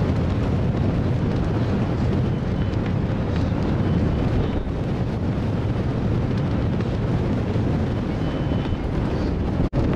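Wind buffeting the camcorder microphone on an open ship deck: a steady, low rumbling rush.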